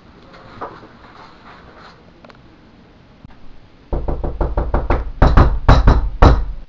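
Rapid knocking on a closed door, about six knocks a second, starting about four seconds in and growing louder near the end.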